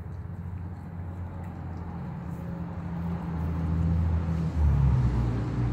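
A motor vehicle's engine runs close by as a low, steady hum that grows louder and changes pitch about three-quarters of the way through. Faint crunching from a dog chewing a raw chicken leg quarter sits under it.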